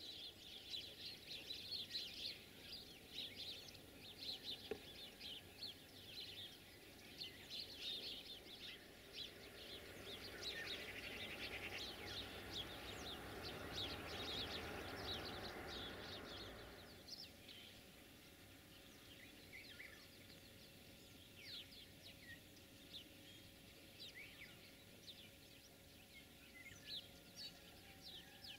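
Small birds chirping and singing in rural morning ambience, many short calls throughout. A broad, steady hiss swells from about ten seconds in and cuts off suddenly about seven seconds later.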